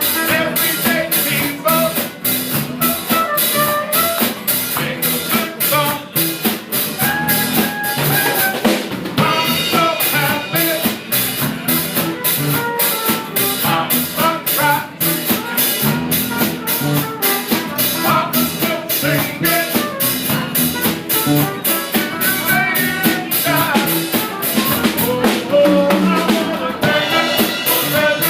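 A live rock band playing, with the drum kit keeping a steady, even beat under sustained instrument notes.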